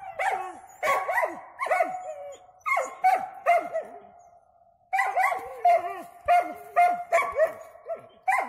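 Hunting dogs barking at a sable treed at the top of a tree: short, pitched barks about three a second, breaking off for about a second just before the middle and then resuming.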